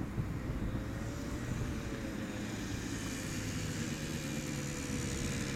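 Wind rumbling on the microphone, with a faint distant engine drone that falls slowly in pitch.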